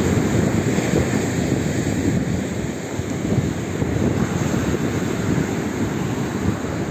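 Wind buffeting the microphone in a steady low rumble, with surf from a heavy swell breaking on the beach.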